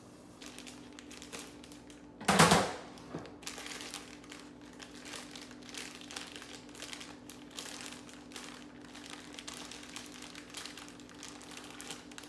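Plastic bag of soft flour tortillas crinkling as it is opened and handled, in many small rustles. About two seconds in there is one loud knock.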